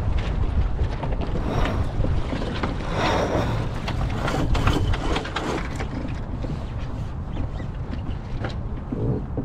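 Wind buffeting the microphone over the rush of water along a sailboat's hull while under way, with a louder surge about three seconds in and scattered light knocks.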